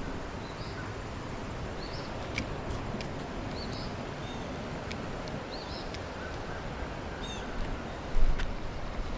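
Steady rush of flowing creek water, with a small bird giving short high chirps every second or so. There is a brief low thump near the end.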